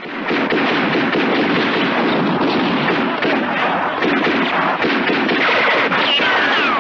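Gatling gun firing in rapid, continuous bursts, mixed with explosions, in a film soundtrack's battle scene. A falling whine cuts through near the end.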